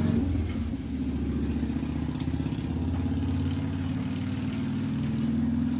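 A steady low engine drone with a fast, even pulse, and a single faint click about two seconds in.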